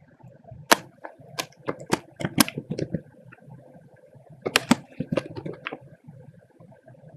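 Typing on a computer keyboard: two short bursts of sharp keystroke clicks, the first starting about a second in and the second a little past the middle.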